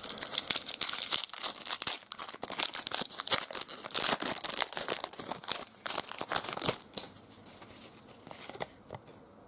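Foil wrapper of an Upper Deck trading-card pack being torn open and crinkled by hand, a dense crackling that dies down about seven seconds in.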